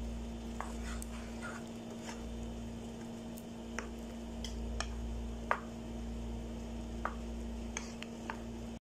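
Wooden spatula stirring and scraping a thick, saucy chicken mixture in a non-stick frying pan, with scattered light taps and clicks against the pan over a steady low hum. The sound drops out briefly near the end.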